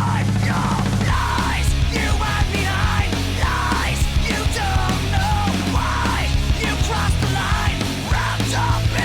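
Heavy rock music, an instrumental passage with a steady heavy bass and a bending lead guitar line.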